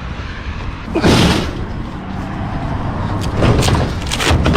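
Thuds and clatter of discarded items being shifted and knocked about in a dumpster: one loud bang about a second in, then several more knocks near the end, over a steady low rumble.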